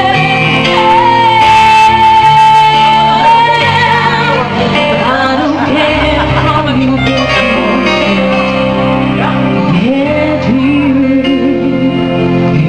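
Live band music: a woman sings over Korg electronic keyboard accompaniment, holding one long high note about a second in. About halfway through, a lower voice with a wavering pitch takes the melody.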